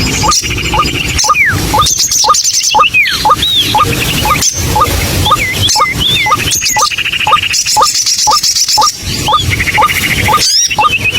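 White-breasted waterhen calling: a steady run of short rising notes, about two a second. Higher chattering trills and whistled notes overlap it.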